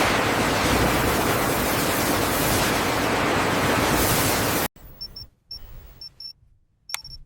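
A loud, steady rushing hiss that cuts off abruptly about four and a half seconds in, leaving a quiet stretch with a few short, high electronic beeps and a sharp click.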